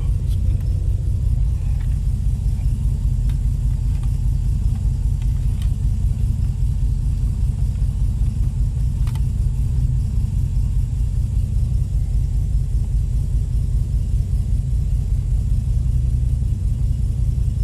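Holden VK Commodore's 202 straight-six running steadily, a low even rumble with a few faint clicks, in a car just brought back to life after sitting for years.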